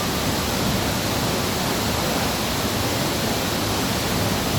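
Waterfall rushing: a steady roar of falling water.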